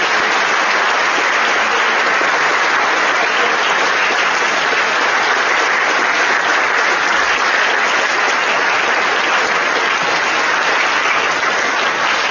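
Audience applauding in a large hall, a steady dense clapping that holds for the whole stretch and dies away just after.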